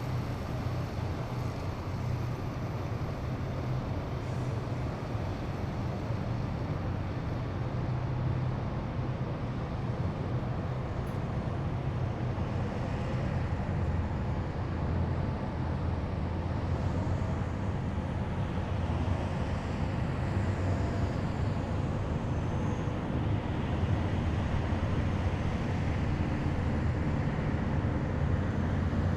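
Heavy military vehicles driving past in a column, a steady low engine rumble with road noise, growing a little louder near the end.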